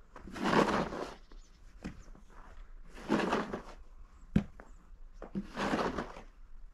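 Snow shovel scraping and pushing snow across a driveway, three strokes about two and a half seconds apart, with a single sharp knock between the second and third.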